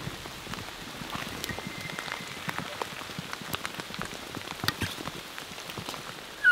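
Steady rain falling, with many single drops ticking sharply close by.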